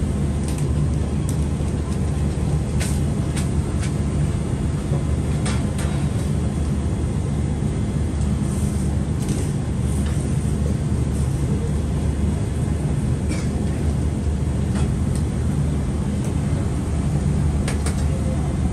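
Steady low rumble of a ramen stall kitchen's burners and equipment, with now and then a sharp clink of utensils and strainer baskets.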